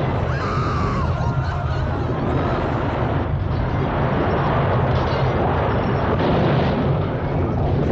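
Film earthquake aftershock sound effect: a loud, continuous deep rumble with crumbling masonry and crashing debris mixed in.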